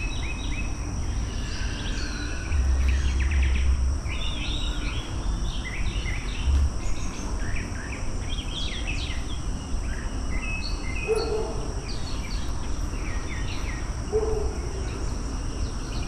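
Several birds chirping and calling over a steady, high-pitched insect drone, with a low rumble underneath that swells about three seconds in.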